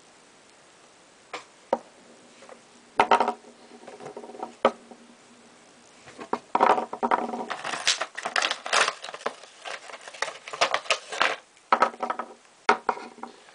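Small model-kit tires being handled and set down on a wooden table: a few light clicks and taps, then busier clattering and tapping from about six seconds in.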